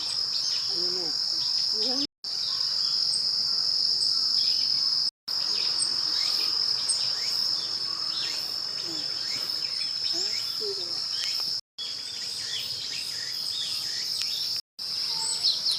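Steady chorus of autumn crickets and other insects, a continuous high-pitched trilling with scattered short high chirps over it. It cuts out completely for a moment four times.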